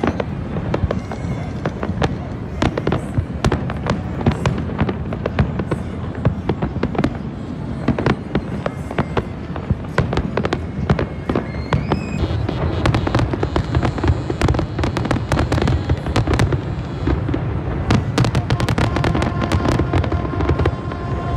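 Fireworks going off in quick succession: many sharp bangs and crackles, densest in two runs in the middle and near the end, over a continuous low rumble.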